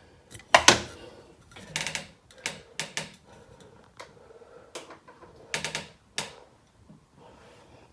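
Irregular sharp clicks and knocks of hard parts and tools being handled while working on a basin tap, about a dozen over several seconds, the loudest about a second in.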